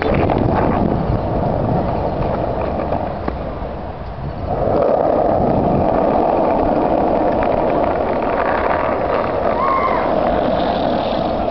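Skateboard wheels rolling on concrete close to the microphone, a steady rumble carried by the rider. It eases off briefly about four seconds in, then picks up louder again.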